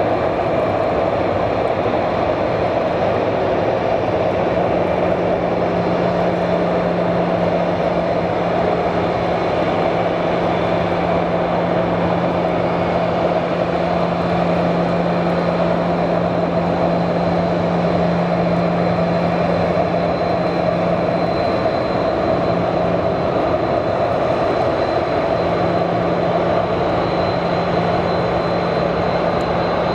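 Boeing 737 jet engines running at idle as the airliner taxis slowly past, a steady rushing sound. A low hum joins about four seconds in, drops away briefly past the twenty-second mark and comes back, and a faint high whine rises near the end.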